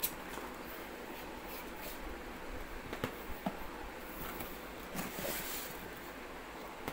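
Cardboard packaging being handled: a few short, scattered rustles and scrapes of cardboard as a product box is slid out of a shipping carton, over a steady faint hiss.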